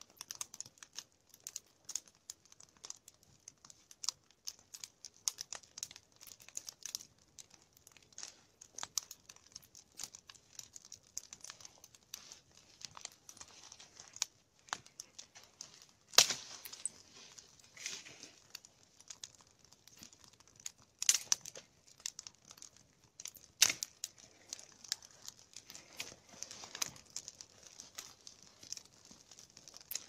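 Log fire crackling as kindling burns along a large log laid for a nodya: a dense, irregular run of small snaps and ticks, with a few louder pops, the loudest about 16 and 24 seconds in.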